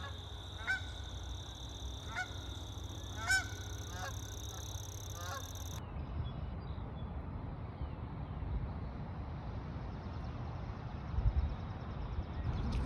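A bird gives about five short honking calls over a steady high whine; the middle call is the loudest. About six seconds in, the sound cuts off abruptly to a steady low outdoor rumble.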